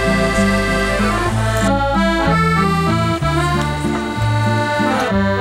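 Background accordion music: a tune played over held chords and a bass line that steps from note to note.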